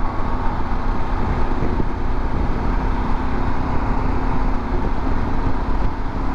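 Harley-Davidson Pan America 1250's V-twin engine running at steady highway speed, with loud, steady wind and road noise over it and a constant low hum.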